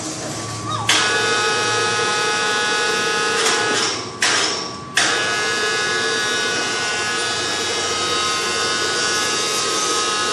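Electric woodworking power tool running with a steady motor whine, starting about a second in and cutting out briefly twice around four to five seconds before running on.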